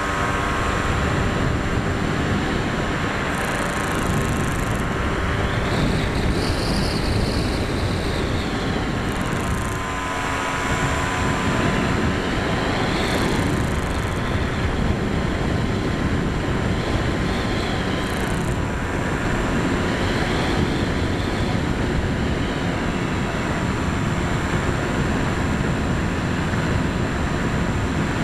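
Motor and propeller of an EPP foam FPV plane, heard from the plane's own onboard camera: a steady whine with wind rushing over the microphone. The pitch dips briefly about a third of the way in, and a higher tone swells and fades several times.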